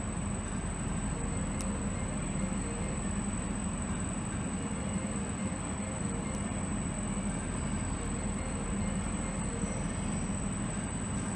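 Steady background rumble and hiss that does not change, with a low hum and a thin, faint high-pitched whine.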